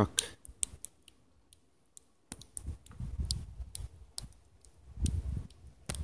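Blizzard wind gusting across a phone microphone as low rumbles that swell and fade from a couple of seconds in, after scattered sharp clicks and ticks at the start.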